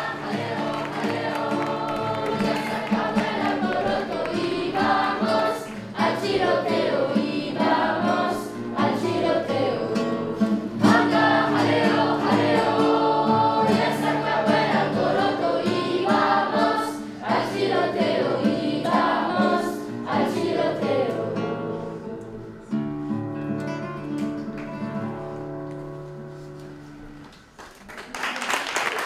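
Youth choir of schoolchildren singing together, closing on a long held chord that fades away; applause breaks out right at the end.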